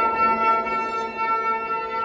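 Ambient electro-acoustic music for electric violin and electronics: a steady held chord of sustained tones over a soft wash.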